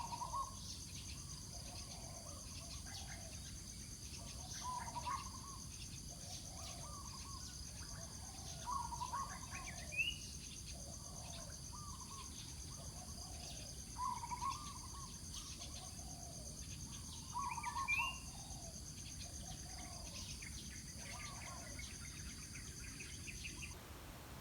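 Birds calling over and over in short phrases every few seconds, a few ending in a rising note, over a steady high-pitched drone of insects.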